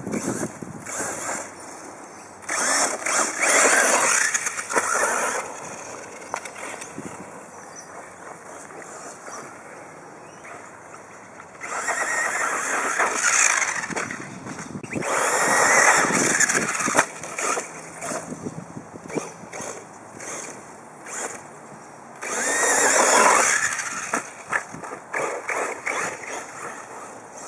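Radio-controlled car driving in short runs, its motor whining up and down in about four surges of a couple of seconds each.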